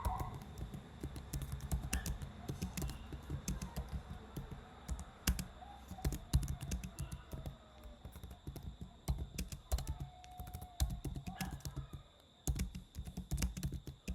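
Fast, uneven typing on a computer keyboard: a dense run of key clicks, with a short pause near the end before the typing resumes.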